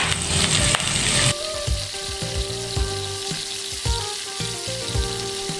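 Garlic and onion sizzling in hot oil in a frying pan as they are sautéed, with a spatula stirring and tapping against the pan. The sizzle is loudest for about the first second, then settles to a softer hiss with occasional spatula clicks.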